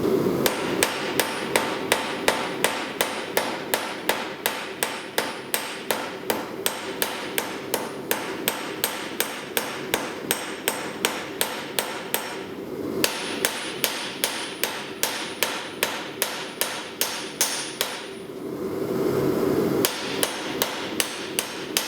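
Hand hammer striking hot steel on an anvil in a fast steady rhythm, about three blows a second, with a short metallic ring on many blows: a round bar being drawn out flat. The hammering stops briefly twice and picks up again.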